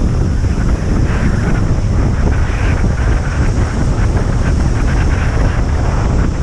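Wind buffeting the microphone of a camera on a kite landboard riding at speed, a steady low rumble with a fainter, fluttering hiss above it.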